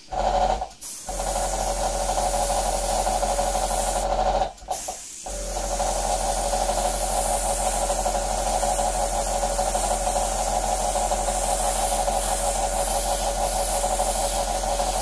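Small airbrush air compressor running loudly with a steady hum while the airbrush hisses out thinned acrylic paint. The sound cuts out briefly just after the start and again about four and a half seconds in, then runs on steadily.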